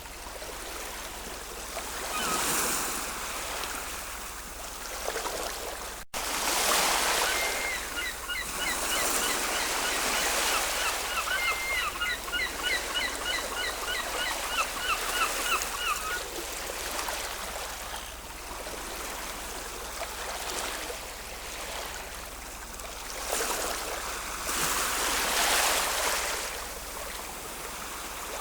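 Ocean waves washing in and out, swelling louder several times, with a run of rapid, repeated bird calls from about 8 to 16 seconds in. The sound drops out for a moment about six seconds in.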